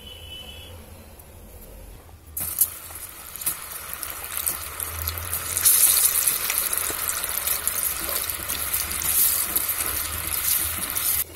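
Water boiling hard in a pan on a gas stove: a loud, dense bubbling hiss with fine crackles that starts suddenly about two seconds in and cuts off sharply near the end.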